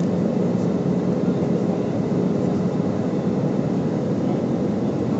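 Steady jet airliner cabin noise at a window seat over the wing: the even rush of engines and airflow, with a low steady hum underneath.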